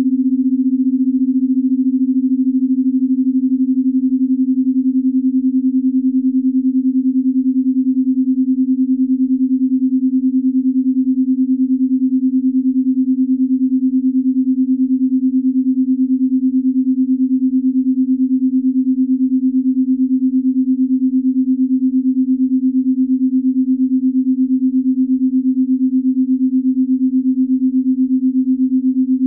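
Binaural-beat sleep tone: a single steady, low pure tone, unchanging in pitch, with a faint even pulsing in its loudness.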